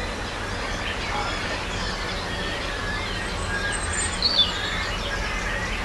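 Several wild birds chirping and twittering over one another in a string of short notes, with one louder call about four seconds in, over a steady low background rumble.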